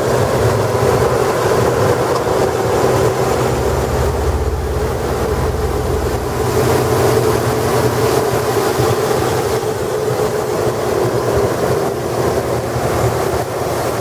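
Chevrolet Silverado's 5.3-litre Vortec V8 idling steadily, heard close up in the open engine bay, running nice and smooth.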